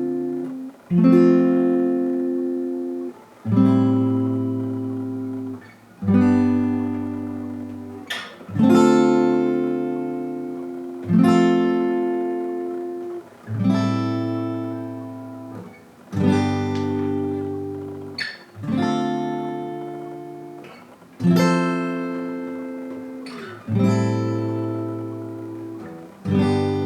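Acoustic guitar strumming slow chords, each struck once and left to ring and fade before the next comes about every two and a half seconds.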